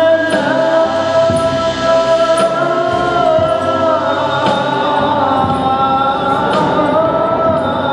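A group of men singing an Arabic devotional poem in unison, holding long, slowly shifting notes, with occasional frame-drum strikes.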